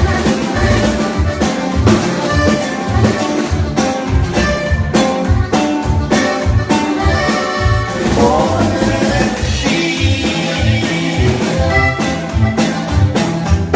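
Recorded norteño band music, an instrumental passage over a steady bass beat, with a rising run of notes about eight seconds in.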